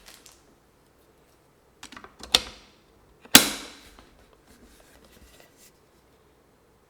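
Keys on an HHKB Pro2 keyboard with Topre-style Realforce R3 45g domes being pressed one at a time. There are a few separate strikes, the loudest about three and a half seconds in, then a few faint light taps before it goes quiet.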